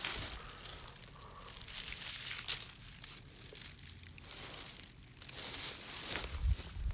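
Irregular rustling and crunching in uneven bursts, like dry material being crushed or disturbed.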